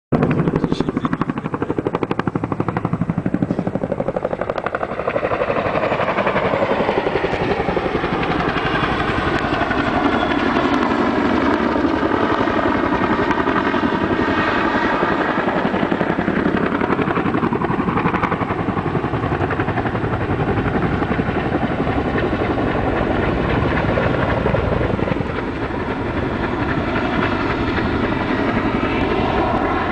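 A Chinook helicopter's twin rotors and turbines running loudly. The pitch of its whine slowly falls and rises as it moves, and it dips slightly in loudness near the end.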